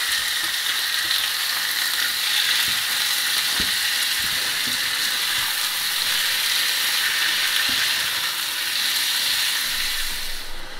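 Veal cubes and sliced onions sizzling in hot oil in a frying pan as they are stirred with a plastic spatula, with a few light knocks of the spatula against the pan. The sizzle dies down just before the end.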